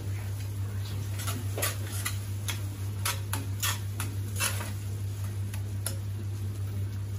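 Metal spoon clicking and scraping against a stainless steel kadhai as spices are stirred into a thick tomato-onion masala, in irregular clicks that bunch up in the middle, over a steady low hum.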